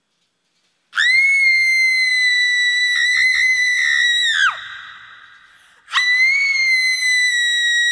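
Arduino face-tracking skull prop's sound effect: a high-pitched electronic shriek starting suddenly, held at one steady pitch and dropping away about three and a half seconds later, then a second identical shriek starting again about a second after that.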